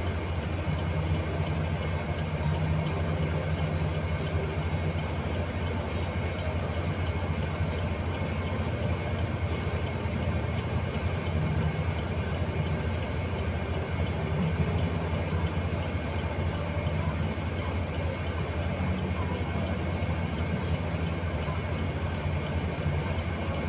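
Truck's diesel engine idling steadily, a constant low hum heard from inside the cab.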